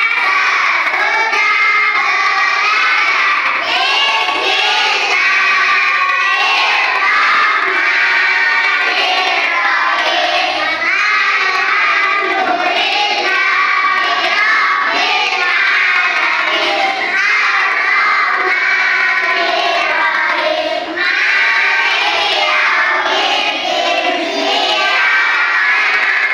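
A class of young schoolchildren singing a song together, loudly.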